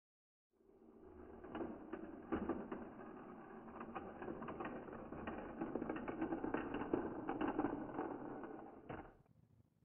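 Metal wheels of an HO-gauge model railway bogie rolling back and forth across a homemade diamond crossing, a rumble with irregular clicks as the wheels drop over the rail gaps of the crossing. It is a running test of crossing frogs freshly smoothed with a file.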